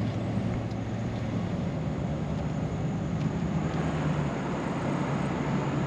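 Engine and road noise inside a moving vehicle's cabin: a steady low hum over an even hiss of tyres on pavement.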